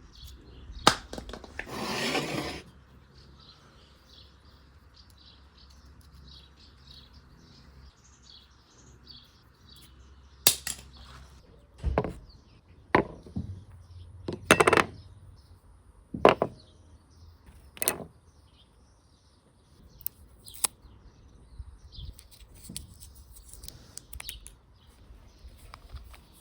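Hand-work on a lawn mower's recoil starter: metal parts and tools knock and clink against a workbench in scattered single strikes. A short scraping rush comes about two seconds in.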